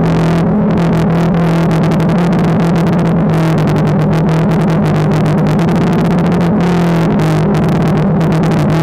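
DJI Phantom 2 quadcopter's motors and propellers, a loud steady buzzing hum whose pitch shifts slightly up and down as the throttle changes in flight.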